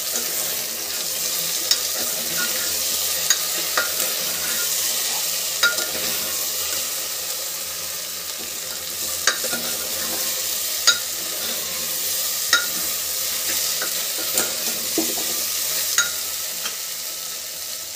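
Diced potatoes, onion and carrot frying in oil in a pressure cooker, a steady sizzle, while a metal utensil stirs them and clinks against the pot now and then.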